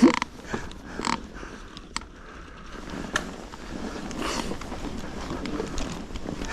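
Mountain bike ridden through deep snow: a steady rumble of riding, with scattered knocks and rattles from the bike and a loud short noise right at the start.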